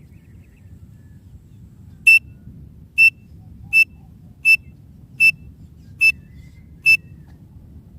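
Teetar (francolin) call: seven short, sharp, high whistled notes at one steady pitch, about one every 0.8 seconds, starting about two seconds in, over a low steady rumble. It is a call used to lure partridges in.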